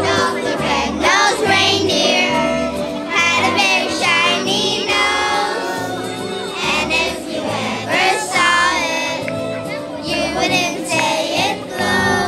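A group of young children singing a Christmas song together over an instrumental accompaniment with a steady, repeating bass line.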